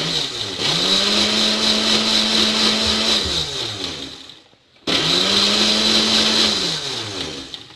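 Electric countertop jar blender grinding Oreo cookies with milk, cream and sugar into a shake. The motor spins up at once to a steady whine, winds down, is switched on again about five seconds in, and winds down again near the end.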